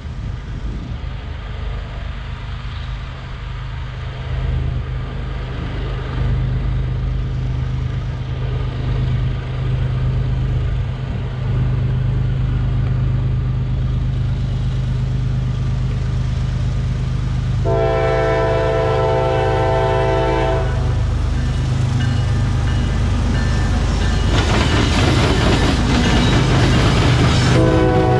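Approaching CSX diesel freight train, its locomotive engines a steady low rumble that grows louder. The locomotive horn sounds one long chord blast about eighteen seconds in, then the engines and wheels pass close by with a rush of noise and the horn sounds again just before the end.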